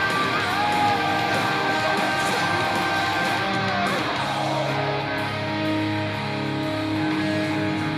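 Heavy metal music with a distorted electric guitar fitted with a Mighty Mite Motherbucker humbucker pickup. Held, bent lead notes slide downward about four seconds in, then give way to sustained low chords.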